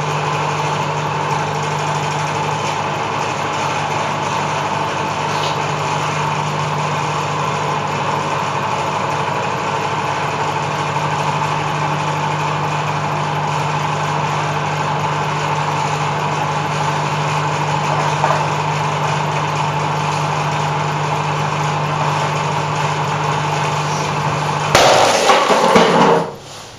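Microwave oven running with a steady hum. Near the end the hum cuts off at once and a sudden loud burst of noise lasts about a second.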